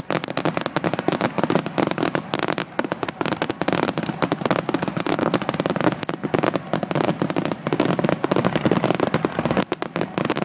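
Aerial fireworks shells bursting in a dense, unbroken barrage: many bangs a second overlapping with crackling stars.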